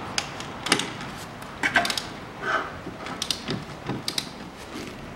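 Ratchet wrench turning out the bolts that hold the steering knuckle to the front strut: a series of irregular metallic clicks and clinks, some ringing briefly.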